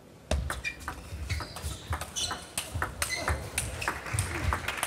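Table tennis rally: the celluloid ball clicking in quick succession off the rackets and the table, starting about a third of a second in with the serve. Players' shoes thud and squeak on the court floor between the hits.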